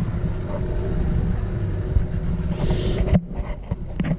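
Motorboat engine running with the rush of wind and water, which drops away suddenly about three seconds in; a few sharp knocks follow near the end.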